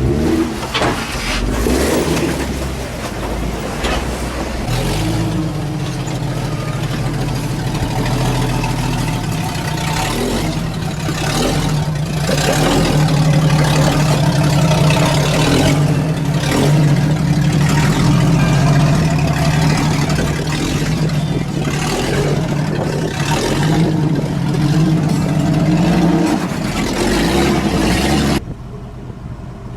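Jeep engine running under load and revving as it crawls over rock, with scattered knocks and scrapes. About two seconds before the end it cuts abruptly to a much quieter engine sound.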